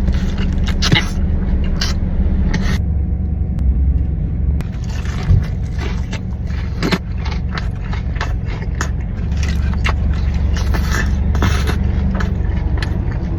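Close-up chewing and crunching of a crispy fried chicken sandwich, many irregular sharp crunches, over a steady low rumble.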